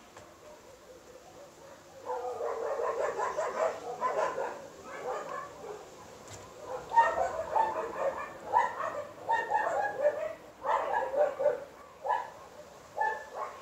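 Dogs barking in quick, overlapping barks that start about two seconds in and go on with short pauses.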